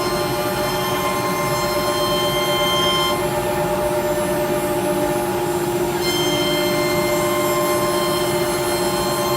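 CNC router running, its spindle giving a steady high whine with several stacked tones over a constant hiss of machine noise; the higher tones drop away for about three seconds in the middle and then return.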